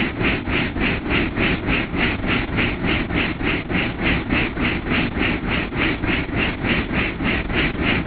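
Helicopter in flight heard from inside the cockpit: steady engine and rotor noise with a low rumble and a regular pulsing, about four to five beats a second.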